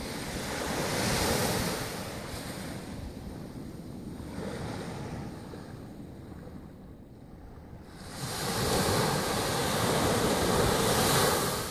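Small sea waves breaking and washing up the beach, swelling louder about a second in and again for the last few seconds, with wind buffeting the microphone.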